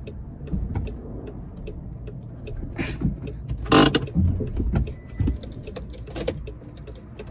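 Inside the cabin of a manual car that has just stalled: a low rumble with scattered light clicks and rattles, and a loud breathy sigh about four seconds in.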